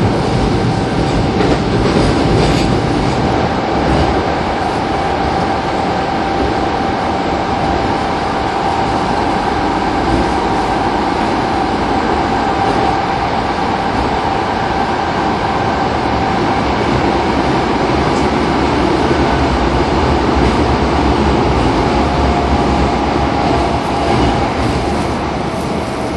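Kobe Municipal Subway 1000 series train running, heard from inside the car: steady wheel and rail rumble with a steady whine from its IGBT-VVVF drive. The whine drops a little in pitch near the end.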